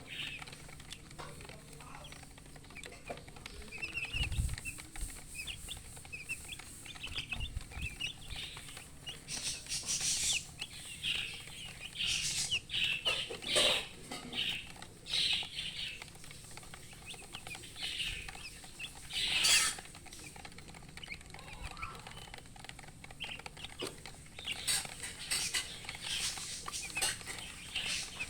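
Baby chicks cheeping in many short, high peeps, with a hen clucking now and then. A few louder, scratchy bursts come about ten, thirteen and nineteen seconds in.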